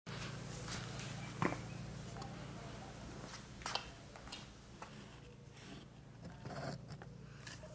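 Fluorescent tube light giving a steady low electrical hum, with scattered faint clicks and crackles over it.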